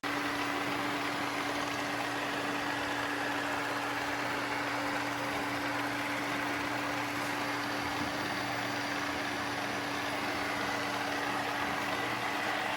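Vacuum suction motor running steadily: an even rushing noise with a constant hum.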